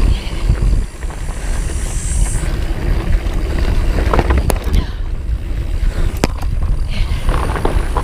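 Plus-tyre full-suspension mountain bike rolling fast over rocky, sandy singletrack: a steady low rumble of wind and trail vibration on the handlebar-mounted microphone, with tyres crunching over gravel and sharp clicks and rattles from stones and the bike.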